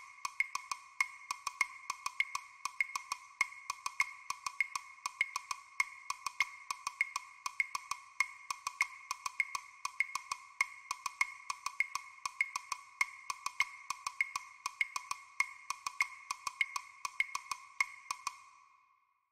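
Computer playback of a two-part percussion duet from a notation score: short struck clicks at two pitches. A steady beat of about 100 a minute runs over a busier syncopated rhythm, and the playing stops on the final bar about a second before the end.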